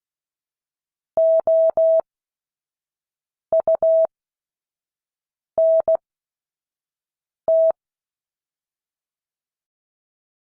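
Morse code practice tone, a steady beep of about 650 Hz keyed in dots and dashes and sent slowly, with long gaps between letters. Four letters go by: dah-dah-dah (O), dit-dit-dah (U), dah-dit (N), then a single dah (T).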